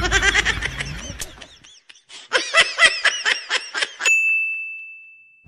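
Laughter in two bursts separated by a short pause, then a single bright ding that rings on and fades out over about a second and a half.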